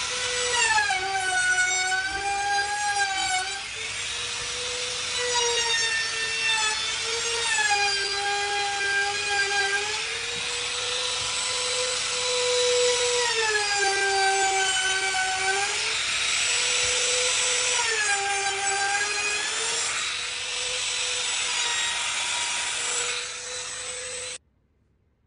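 Handheld router running with a high whine as its bit cuts along the edge of a solid wood tabletop. The pitch sags four times as the bit takes load and recovers in between. The sound stops abruptly near the end.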